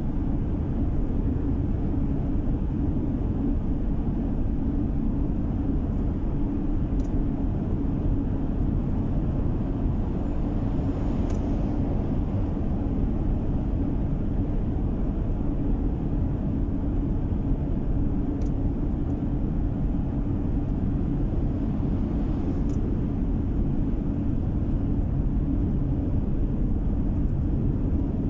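Steady road noise of a car driving through a road tunnel, heard from inside the cabin: an even, low drone of tyres and engine that does not change in level.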